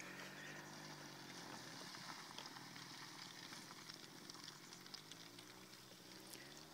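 Faint, distant trial motorcycle engine working hard up a steep slope, its pitch rising and falling with the throttle.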